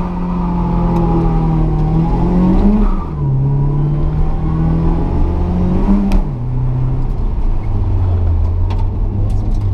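The 1972 Datsun 510's built L16 inline-four, with a 38 DGAS Weber carburettor, heard from inside the cabin under hard acceleration. The engine note climbs and drops sharply at upshifts about three and six seconds in, then runs at a lower, steadier pitch.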